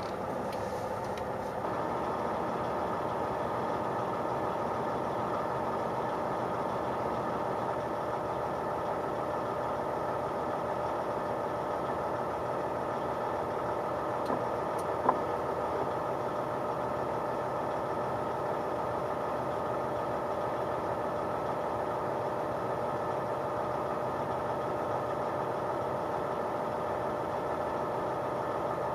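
Mack CXU613 truck's diesel engine running steadily, a little louder from about two seconds in, with one sharp click midway.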